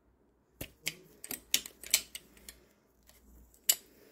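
An irregular run of about ten sharp clicks and taps, quick and uneven, the loudest near the middle and one more about three-quarters of the way through.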